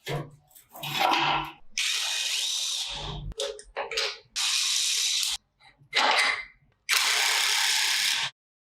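Workshop power tool running in three short bursts of about a second or more each, with a faint motor whine, broken up by brief metallic clatters of parts being handled.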